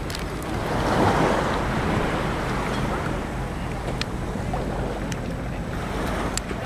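Wind buffeting the microphone over the wash of small waves in shallow sea water, swelling about a second in.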